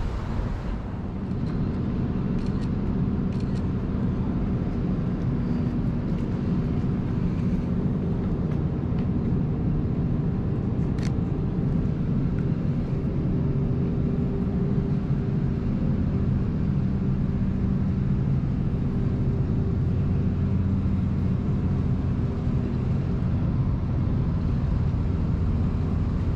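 Steady city street traffic: a constant low hum of running vehicle engines, with a brief high squeak about eleven seconds in.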